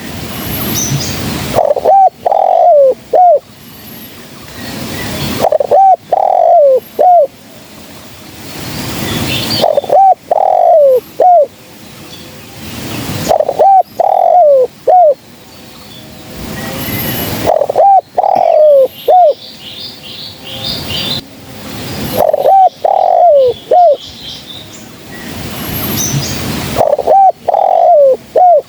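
Spotted dove cooing: a phrase of three or four low, falling coos repeated about every four seconds. A background hiss swells between the phrases.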